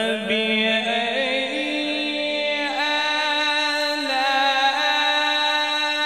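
A male Quran reciter's voice in melodic tilawat, drawing out one long note: it slides up in pitch about a second and a half in and is then held steady.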